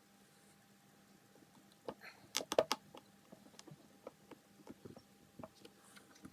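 Small sharp clicks and taps of a tiny Phillips screwdriver and small screws being handled against the laptop's hinge and case: a quick cluster of clicks about two seconds in, then scattered lighter ticks.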